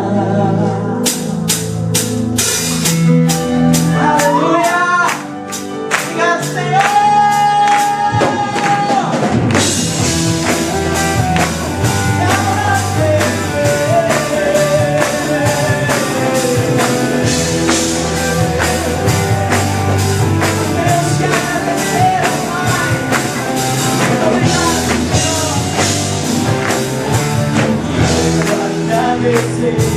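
Gospel band music between sung verses: a steady percussion beat and a melodic lead line, with the full band and drums coming in about ten seconds in.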